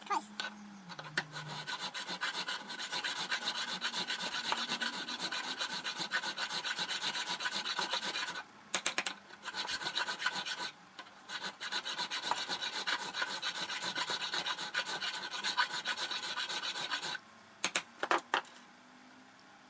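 Hand file rasping back and forth over a small metal gib key, in rapid steady strokes with two short pauses, filing it down to fit. The filing stops a few seconds before the end, followed by a few light knocks.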